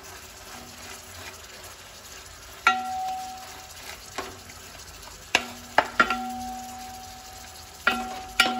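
Fish fillets sizzling steadily in oil in a large aluminium pot, while a wooden spatula spreading masala over them knocks against the pot about seven times, most knocks leaving a short metallic ring.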